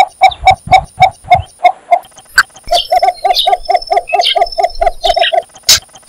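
Cinnamon bittern calling a series of short, evenly repeated clucking notes. After a pause about two seconds in, a second, faster run follows.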